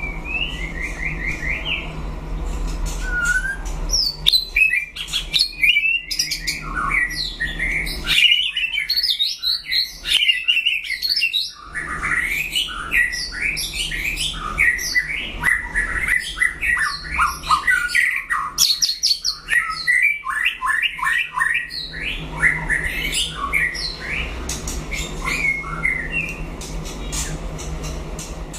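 White-rumped shama singing a long, rapid, varied song of whistles and chattering notes. The song thins out to sparser phrases near the end.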